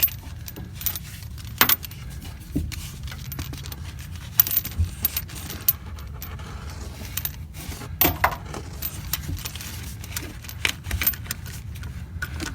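A rubber coolant hose being pushed and snaked down through a diesel engine bay: scattered clicks, knocks and scrapes as it rubs and catches on metal parts, over a steady low hum.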